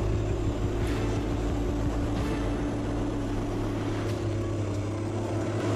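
Industrial tire shredder running with a steady low mechanical drone, with a few faint knocks as it works.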